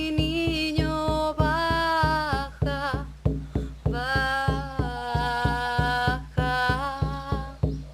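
Devotional song: a steady, quick drum beat of about four strokes a second under long, held notes of wordless singing.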